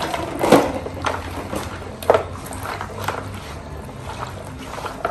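Hands kneading and squeezing wet, marinated pieces of food in a plastic basin, with irregular wet squelches and squishes.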